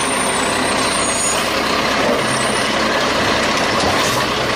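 Heavy truck running: a steady loud hiss over a low engine tone.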